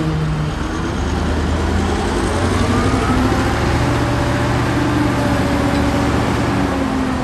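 Heavy diesel engine of earthmoving machinery running steadily under load, its pitch drifting up and down as it works.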